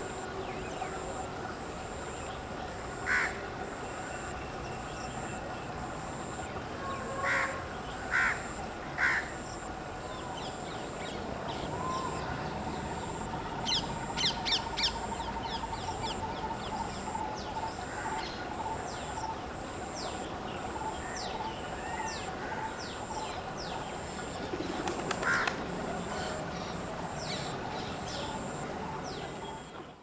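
Crows cawing, a few separate loud caws spread over the stretch, over a busy background of small birds chirping, with a rapid trill in the middle.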